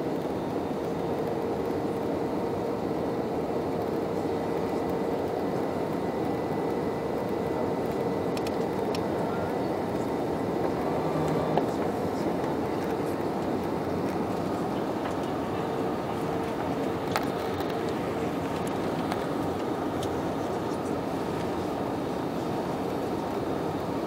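Jet airliner cabin noise from a window seat over the wing: the steady rushing of the engines and airflow with a faint steady hum. Two small clicks about halfway through.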